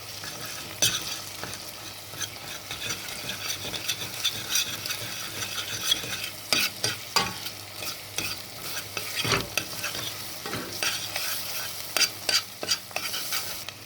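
Diced sheep tail fat and onion sizzling in butter in a pot, with pepper paste just added, while a spoon stirs the mixture. The spoon scrapes and knocks against the pot now and then over the steady sizzle.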